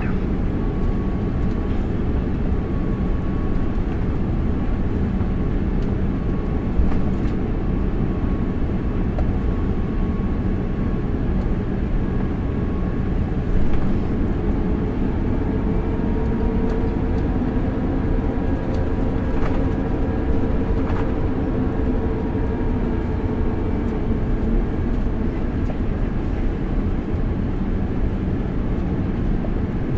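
Steady cabin rumble of an Airbus A350-900 taxiing, heard from inside the cabin, with its Rolls-Royce Trent XWB engines running. A faint engine whine rises in pitch and fades again through the middle, and there are a couple of light bumps.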